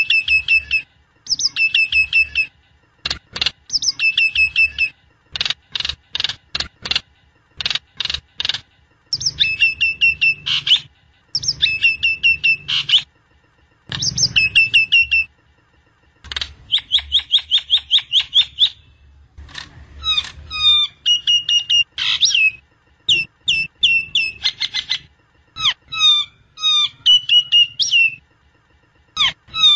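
Jalak nias myna singing: short bursts of sharp whistled notes and rapid chattering trills, repeated phrase after phrase with brief pauses.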